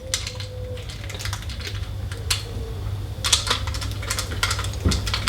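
Machine screws being threaded into the smart lock's inside-handle fittings: irregular small metal clicks and taps in short clusters.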